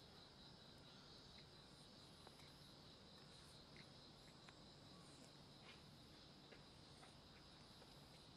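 Faint, steady chirring of insects, with a few soft, scattered clicks.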